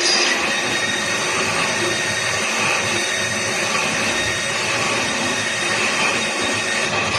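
CNC machine tool running and cutting: a steady whirring noise with thin, high, steady whining tones.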